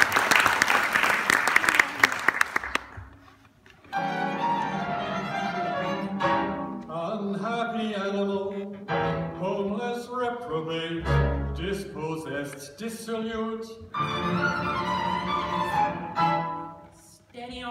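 Audience applause that dies away over the first three seconds, then the chamber ensemble begins a passage of bowed strings, violin and cello lines moving between held notes. A single low thud comes about eleven seconds in.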